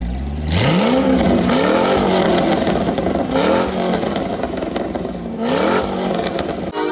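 Car engine revving hard, its pitch climbing steeply about four times over a steady exhaust roar.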